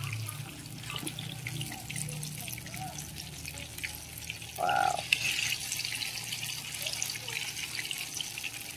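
Hot oil sizzling and crackling steadily in a wok as battered bananas deep-fry, with one short louder sound about halfway through.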